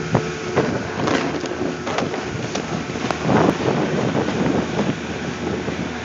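Wind noise on a phone microphone while snowboarding, with the board scraping over packed snow and several short knocks from the phone being handled.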